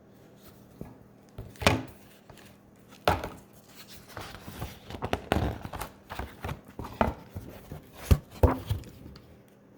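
Handling noise: over a dozen irregular knocks and taps with rustling between them, the loudest a little under two seconds in, about three seconds in, and near eight seconds in.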